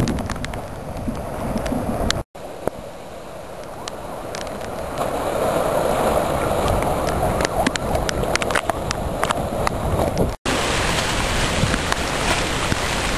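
Floodwater rushing and gurgling under gusty typhoon wind that buffets the microphone, with scattered small splashes and ticks. The wind hiss grows stronger near the end, and the sound cuts out abruptly twice.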